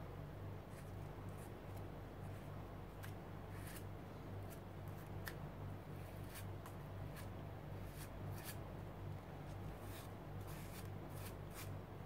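Palette knife scraping and spreading joint compound through a stencil: a run of short scrapes at irregular intervals over a steady low hum.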